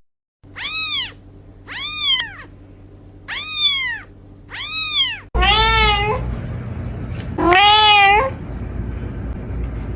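Domestic cat meowing: four short, high meows about a second and a half apart, each rising then falling in pitch. Then, over a steady background hum, two longer, lower meows with a wavering pitch.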